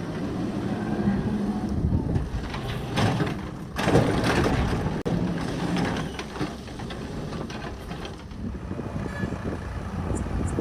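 Diesel engine of earthmoving machinery running steadily, with a loud rushing burst about four seconds in.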